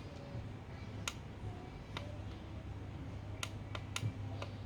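About six light, sharp clicks and taps spaced irregularly, over a low steady hum.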